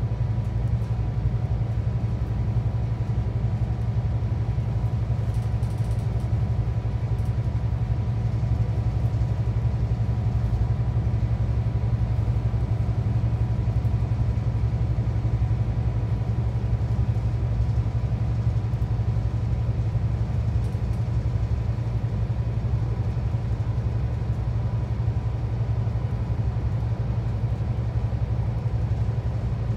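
Scania K360EB4 coach's five-cylinder diesel engine and road noise heard from inside the Irizar i6 cabin while under way: a steady low drone with a faint, steady higher whine.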